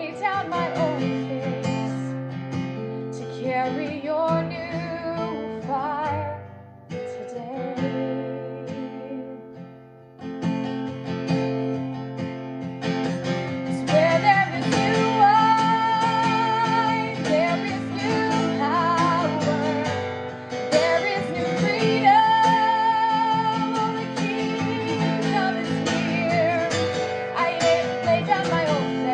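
A woman singing a worship song over a strummed acoustic guitar. The music thins to its quietest around ten seconds in, then comes back louder and fuller.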